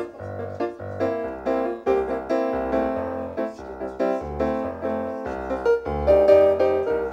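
Piano music: a run of quick notes over a low bass line.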